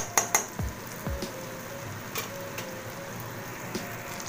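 Masala paste frying in oil in a kadai, sizzling and crackling steadily, with a few sharp pops near the start. The oil has separated from the paste, the sign that the masala is fully fried.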